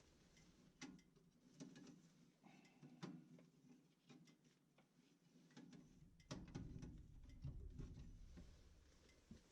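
Faint, scattered clicks and light knocks of hand work on a gas furnace's burner assembly, as the burners are shifted and adjusted. A louder low rumble of handling comes in about six seconds in and lasts about two seconds.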